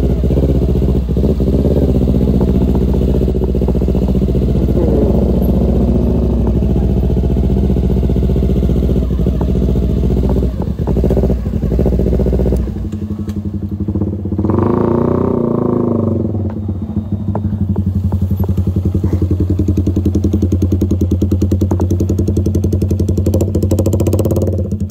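Motorcycle engine running while riding, with a heavy low rumble underneath that drops away about halfway. Shortly after, the engine note rises and falls briefly, then settles to a steady even beat.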